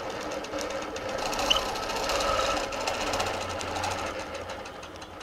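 Longarm quilting machine stitching, its needle running fast and even while the hopping foot is guided along an acrylic arc ruler. It starts suddenly and stops near the end.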